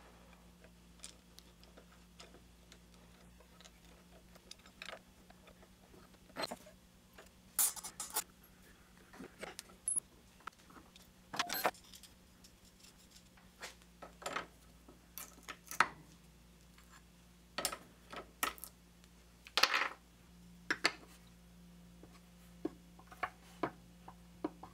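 Aluminium rod clinking and knocking against a bench vise and its homemade bending mandrels as it is repositioned and bent by hand: a dozen or so sharp, scattered clinks.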